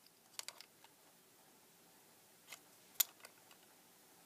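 A few light clicks and taps of a small metal precision screwdriver against the lamp's plastic base and circuit board as it is worked at the board's edge: a short cluster about half a second in, then a sharper single click about three seconds in.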